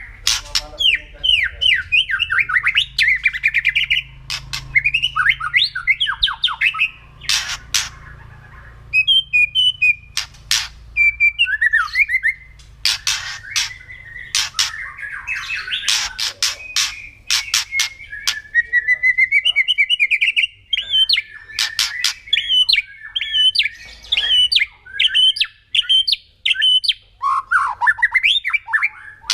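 White-rumped shama (murai batu) calling continuously in its 'kretekan' style: harsh crackling rattles mixed with fast runs of whistled notes. This is the agitated, aggressive calling of a bird provoked to fight.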